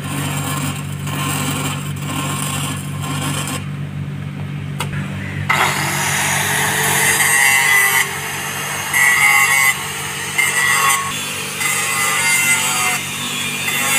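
Stick-welding arc crackling on a steel pipe joint over a steady low hum. About five and a half seconds in, an angle grinder starts grinding the weld, loud and grating, its level jumping as it bites into the steel.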